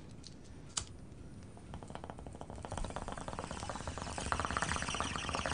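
A single click about a second in, then bong water bubbling through a glass bong in a rapid stream of fine ticks that grows louder as smoke is drawn through it.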